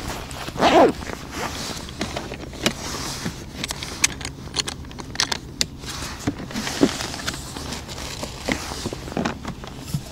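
Clothing rustle and scattered small clicks and knocks of gear being handled at a plastic ice-fishing seat box, with a louder scraping rustle a little under a second in. Near the end a thermos is lifted out of the box.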